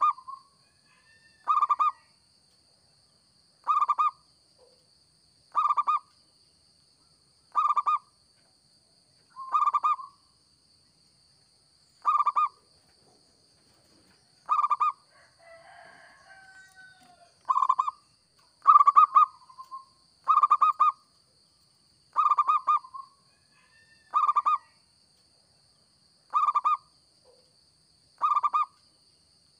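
Zebra dove (perkutut) cooing, its short staccato song repeated about every two seconds. A faint steady high whine runs underneath.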